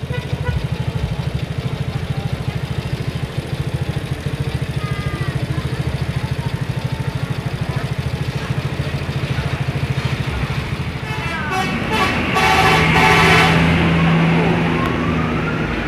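Tour bus diesel engine running close by as the bus pulls past, with a fast even rumble. Near the end a loud bus horn sounds for about three seconds.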